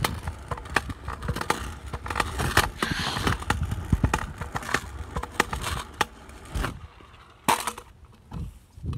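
Phone handling noise while walking: fabric rubbing and knocking against the microphone as the phone swings about, with irregular clicks and a low rumble, quieter for the last couple of seconds.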